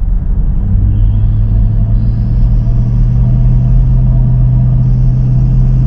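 Car driving along a rough asphalt road: steady low road rumble, with a low engine drone that settles into a steady hum about a second in.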